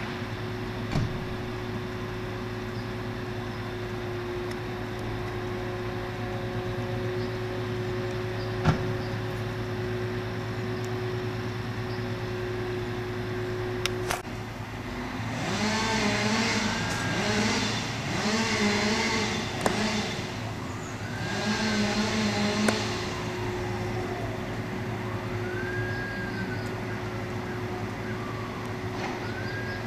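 Steady drone of a truck-mounted tree-felling crane's engine running, with a louder machine sound rising and falling in pitch for several seconds in the middle.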